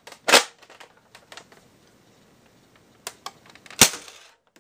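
Red Nerf Longshot dart blaster, modified with its air restrictors removed and a stronger spring, handled with a few sharp plastic clicks and clacks, then fired with one loud sharp thunk a little before the end.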